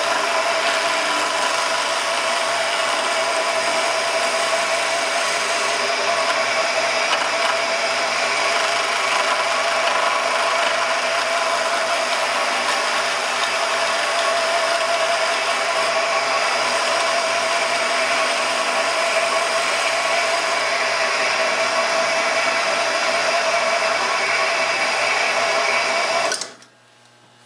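DeWalt radial arm saw motor running steadily, spinning the lathe attachment while a high-speed steel turning tool cuts the wood blank round. The sound stops abruptly near the end.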